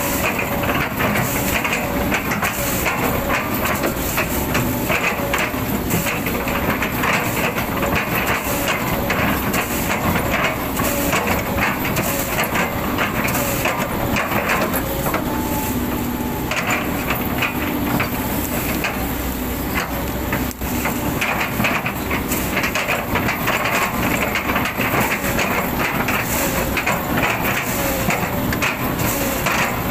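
Hydraulic excavator running under load while its bucket chops and crushes an old oil palm trunk into chips: a dense, irregular stream of wood cracking and crunching over the steady engine.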